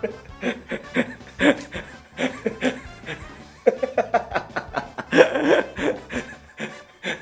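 A man laughing in repeated bursts, loudest about five seconds in, over background music.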